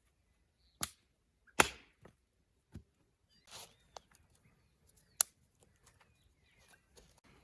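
Firewood cracking: about six sharp, irregular cracks and knocks, the loudest a little over a second and a half in and again past five seconds.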